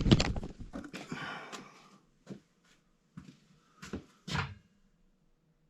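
Hands handling wiring and the zone control panel: a quick run of clicks and rustling, then a few separate clicks and taps that stop about three-quarters of the way through.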